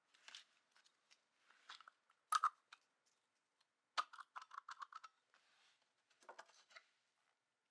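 Hand tools and small metal parts being handled: irregular clicks and clinks, some with a short metallic ring, with a quick run of taps about four seconds in.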